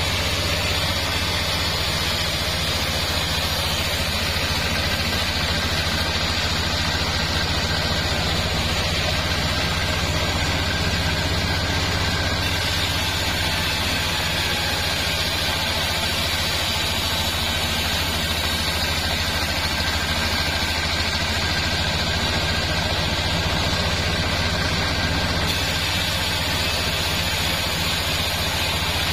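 A bandsaw mill running steadily, its engine driving the band blade as it saws lengthwise through a sengon log.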